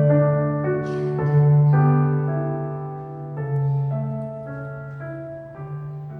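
Slow keyboard music: sustained piano chords that change every second or so over a held low bass note, growing softer toward the end.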